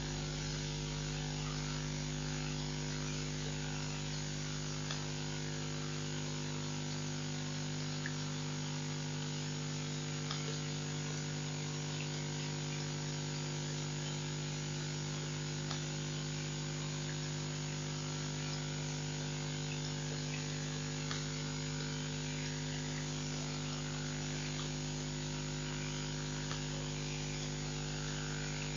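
Steady electrical mains hum with a layer of hiss on the webcam's audio feed, unchanging throughout, with a few faint scattered ticks.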